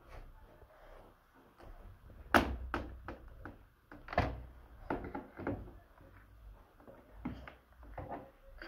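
Knocks and clatter of hard plastic toy parts being handled and bumped together, a string of separate knocks with the loudest about two and a half seconds in.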